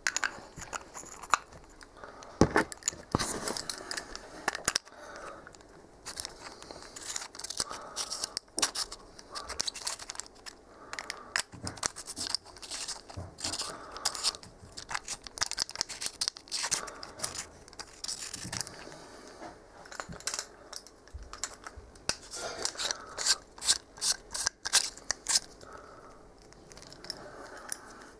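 Hands handling a small metal-bodied laser pointer and its batteries close to the microphone: an irregular run of clicks, scrapes and small rattles as the parts are twisted, tapped and fitted together.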